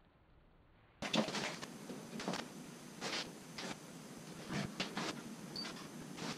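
Hand-working noises at a wooden kayak's deck-hull seam: after near silence, a series of short, irregular rustling and scraping sounds begins about a second in over a low steady hiss.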